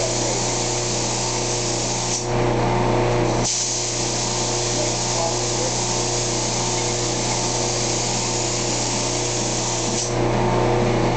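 Compressed-air paint spray gun hissing steadily as red paint is sprayed onto a truck body panel, the trigger released twice: for about a second, two seconds in, and again near the end. A steady motor hum runs underneath.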